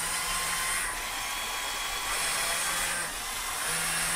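Electric Control+ motors and gear trains of a LEGO Technic Liebherr R9800 excavator model running as the boom and bucket move, a steady whirring. Over it a low hum starts and stops three times as functions switch on and off.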